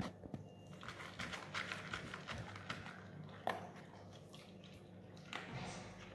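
A chow chow crunching dry kibble from a plate: a quick run of crisp crunches and clicks, with one sharper click about three and a half seconds in.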